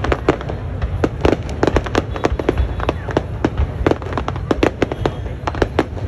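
Aerial fireworks display: a rapid, irregular string of sharp bangs and crackles, several a second, over a steady low rumble.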